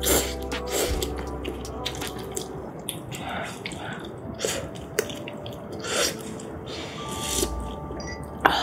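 Close-miked slurping of noodles and broth: a series of short wet slurps and sips about a second apart.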